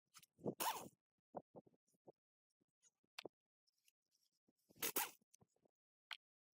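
Short rasping scrapes, two main strokes about four seconds apart, with a few small clicks and taps between them, typical of hand work on parts during an engine teardown.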